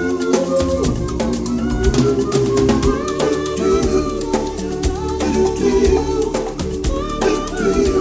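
Background music with a steady, quick beat and sustained melodic notes.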